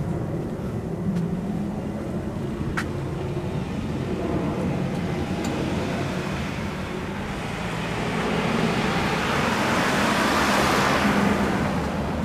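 Road traffic with a steady low rumble, and a car passing close by that swells to its loudest about ten seconds in, then fades. A single sharp click about three seconds in.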